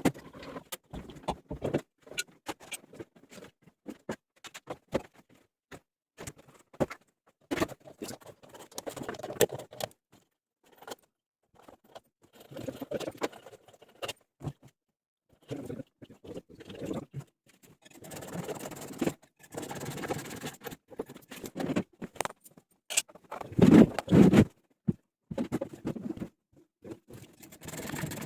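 Clicks, knocks and scraping of tools and machine parts as a washing machine is taken apart, irregular throughout, with one louder knock about three-quarters of the way through.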